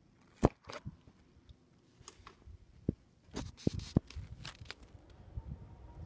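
Handling noise: several sharp clicks and knocks with light rustling as the camera is moved, the loudest about half a second in and a quick run of them around three and a half to four seconds in.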